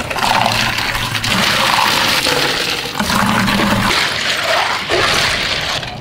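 Ice cubes and flavoured drink splashing and clattering in glass dispenser tanks as ice is tipped in and the drink is poured and stirred over it: a continuous rushing, sloshing sound.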